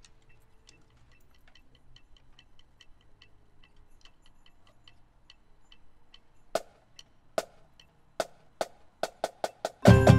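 A faint metronome ticking about four times a second, then sharp clicks counting in at shorter and shorter intervals. Near the end the full drumline and front ensemble (snare drums, marimbas) come in together loudly.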